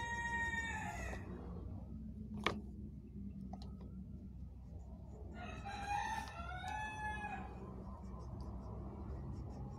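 Rooster crowing twice: one crow trails off about a second in, and a second crow comes about six seconds in, lasting over a second. A single sharp click sounds at about two and a half seconds, over a steady low rumble.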